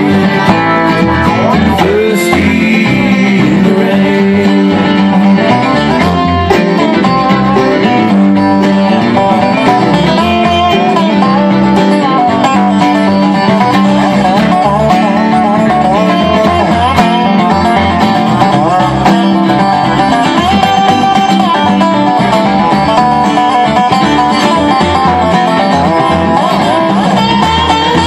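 Bluegrass band playing an instrumental passage live: fiddle, banjo, dobro, acoustic guitar and upright bass.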